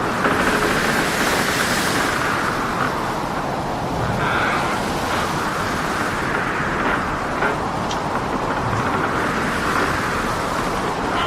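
Storm at sea: a steady, heavy roar of wind and breaking waves, with a hissing wash that swells louder in the first couple of seconds.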